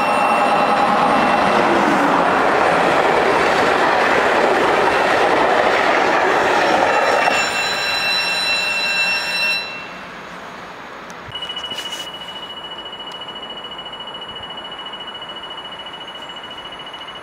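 Electric passenger train passing close by, a loud rush of wheel and running noise that eases off about seven seconds in and drops away near ten seconds. After that a quieter steady rail rumble with a thin, steady high tone.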